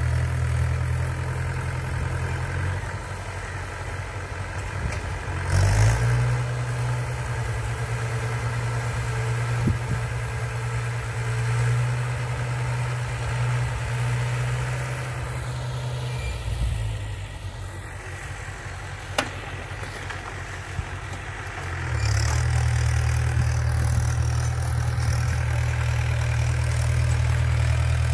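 Mahindra 475 DI tractor's diesel engine running steadily under load while driving a rotavator through the soil: a low drone that weakens for several seconds past the middle and comes back louder near the end.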